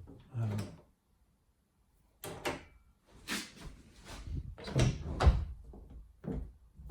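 A series of clacks and knocks from work on a wooden door's tubular latch and handle, with a heavy thump about five seconds in.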